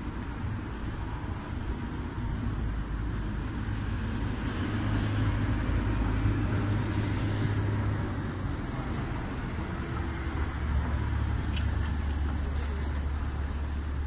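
Modern low-floor articulated tram running past close by, its motors and wheels on the rails giving a steady low rumble that swells in the middle and then eases off, with a thin high whine that comes and goes, over city traffic.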